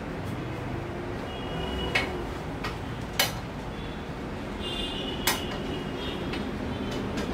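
Sharp metallic clicks and clinks from a bicycle hub-motor wheel and its spokes being handled in a truing stand, three of them loud and the rest faint ticks, over a steady background rumble.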